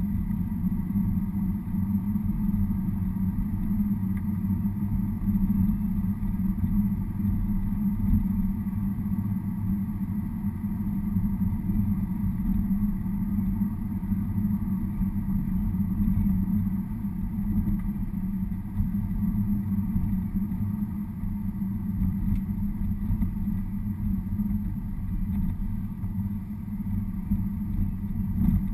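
Car driving at a steady, low speed, heard from inside the cabin: a continuous low rumble of engine and tyre noise.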